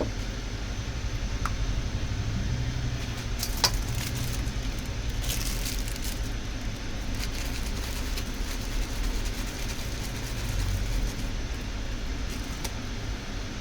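Steady low hum of background noise, like a fan or air conditioner running, with scattered light clicks and taps; the sharpest click comes about three and a half seconds in.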